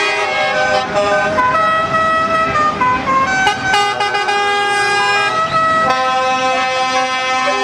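Truck air horns sounding continuously, several tones at once, their pitch stepping from note to note every fraction of a second like a played tune.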